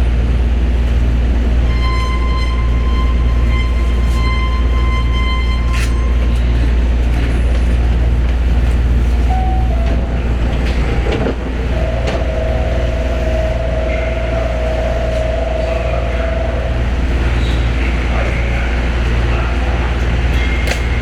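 Osaka Monorail train heard from inside the car: a constant low rumble of the running train. A steady high tone sounds for about four seconds near the start, and a lower steady tone for about five seconds in the second half.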